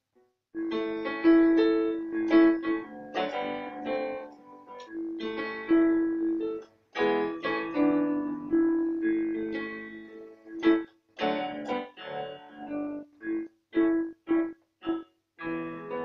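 Digital piano played alone as an instrumental break: rhythmic chords over a repeated note. It starts after a short pause and breaks into short, separated chords near the end.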